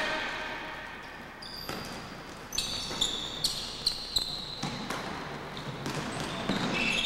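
Basketball sneakers squeaking on a hardwood gym floor as players cut and shuffle, with a basketball bouncing a few sharp times about three to four seconds in.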